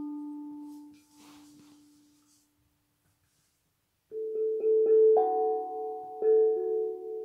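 Steel tongue drum struck with felt mallets: one note rings and fades away over the first two seconds, then after a pause a run of struck notes begins about four seconds in, each ringing on and overlapping the next. The tones are clear and bright, without finger noise.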